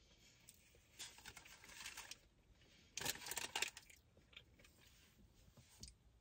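Faint crinkling of a paper burger wrapper as a cheeseburger is lifted out of it, in two short spells, the second the louder.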